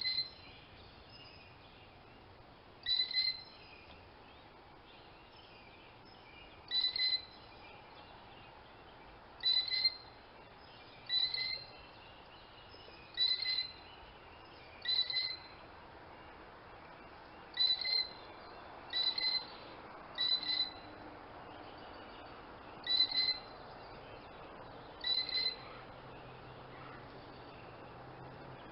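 A bird calling over and over: about a dozen short, clipped, high-pitched calls, each the same steady note, coming every two to four seconds over a faint outdoor hiss.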